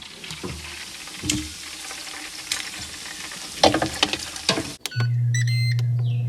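Food sizzling and crackling, with scattered sharp clicks and rustles. About five seconds in, this gives way to a steady low electric hum with a few short electronic beeps, like an air fryer starting up.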